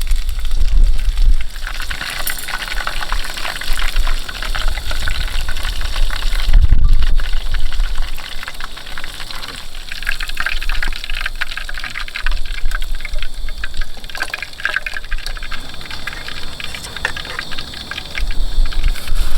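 Shrimp deep-frying in hot oil: a dense, steady crackle and sizzle. Low rumbles come in briefly at the start and again about a third of the way in.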